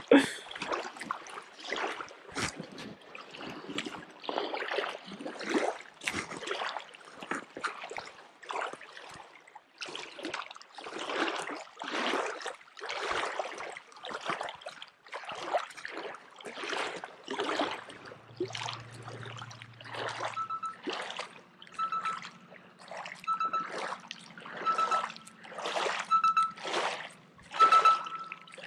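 Small waves lapping and splashing against a rocky shoreline, one swish after another about once a second.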